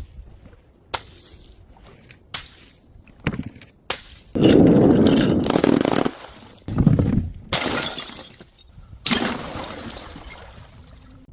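Glass breaking and shattering in a run of separate impacts. A few small clicks and clinks come first, then the loudest smash about four seconds in, lasting over a second, followed by three more shorter breaks.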